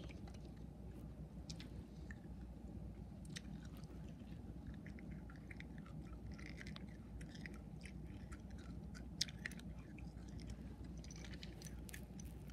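Two people chewing small pieces of food close to the microphone, with scattered wet mouth clicks and small crunches and one sharper click about nine seconds in.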